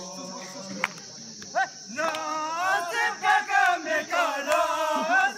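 A group of men's voices chanting a song together, quiet at first and loud from about two seconds in, over a steady high buzz of insects.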